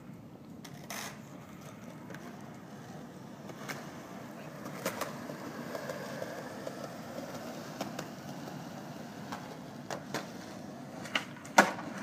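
Skateboard wheels rolling over concrete, a steady rumble broken by several sharp clacks, the loudest near the end.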